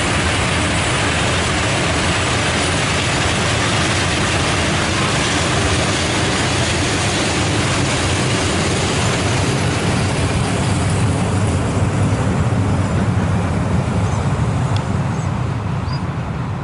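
Freight train of hopper wagons rolling past on the rails, a steady rumbling clatter whose high part thins out over the second half as the last wagons move away.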